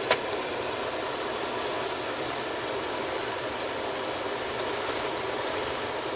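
Steady rushing air noise inside a stopped car in a dust storm, with one sharp click just after the start.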